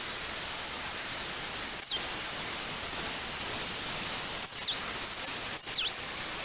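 Angle grinder cutting expanded steel mesh: a steady, hissing grind. Its high whine dips sharply in pitch and climbs back about four times.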